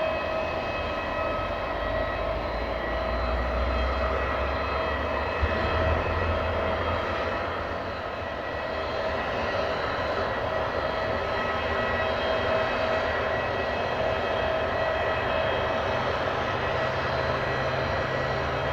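Airbus A320neo's Pratt & Whitney PW1100G geared turbofan engines running steadily: a whine of several held tones over a low rumble.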